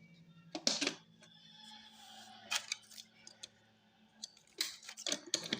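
Scattered clicks and knocks of a charger and its cable being handled and plugged into a socket, with a cluster of clicks near the end.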